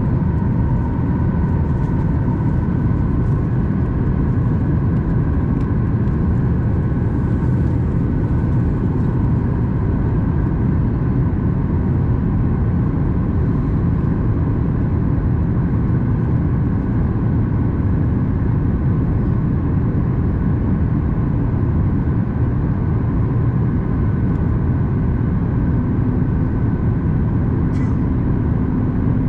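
Steady cabin noise inside a Boeing 737 MAX 8 in flight: a deep, even rumble of airflow and the CFM LEAP-1B engines, with a faint high whine on top. A low hum joins in near the end.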